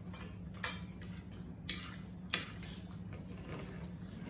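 Cutlery clicking against dinner plates during a meal: four or so light, sharp clicks spread over the first two and a half seconds, over a steady low hum.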